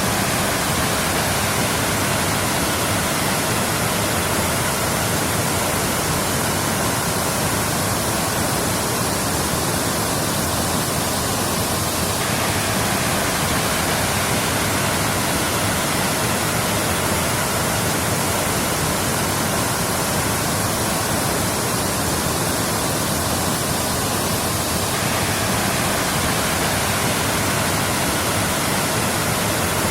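Waterfall: falling water rushing, a steady, even roar of noise with no changes.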